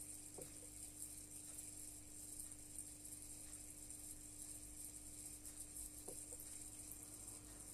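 Faint steady hum and hiss of a running home aquarium, with two faint short sounds, one about half a second in and one about six seconds in.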